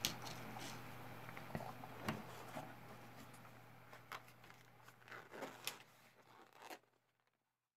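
Faint handling noise of small objects being picked up off a tabletop: scattered light taps and clicks over a steady low hum. Everything stops about seven seconds in.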